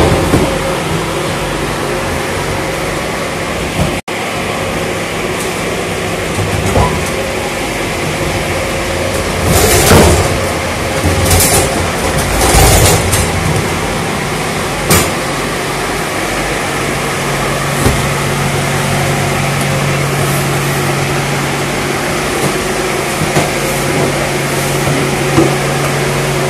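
A steady machine hum runs throughout, with a low drone that grows stronger later on. A few louder knocks and scrapes from cargo being handled inside a steel shipping container come in the middle.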